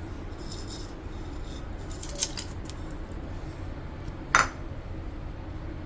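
Metal kitchen utensils clinking and scraping a few times, with the sharpest, loudest clink about four seconds in, over a low steady hum.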